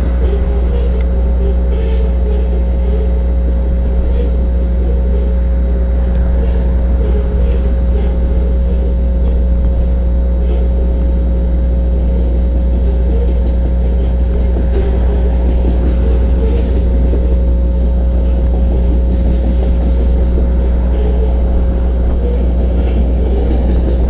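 Freight train of grain hopper cars rolling past close by: a steady, heavy rumble of wheels on rail, with a few faint knocks.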